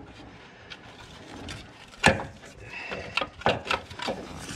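Metal knocking and clicking as a loose engine mount is wrestled against the surrounding metal while being worked free: one loud knock about two seconds in, then a run of smaller knocks and clicks.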